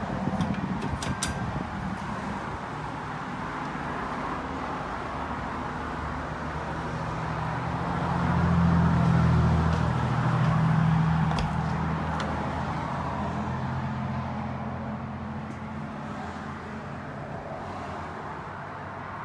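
A motor vehicle's engine humming steadily, growing louder about eight seconds in and fading again after about eleven seconds. A few light clicks come near the start.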